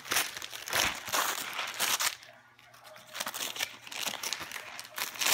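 Gift-wrapping paper crinkling and rustling as a wrapped box is picked up and handled, with a short lull a little after two seconds in before the crinkling picks up again.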